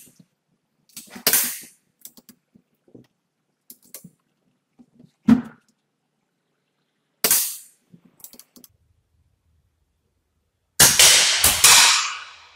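BRK Ghost PCP air rifle firing single shots a few seconds apart, each a sharp crack with a short echo, with small clicks between the shots. Near the end comes a louder, longer cluster of cracks.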